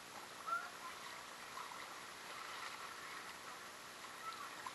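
Shallow freshwater creek water flowing and lapping, a steady faint burble with small irregular splashes. A short high squeak sounds about half a second in.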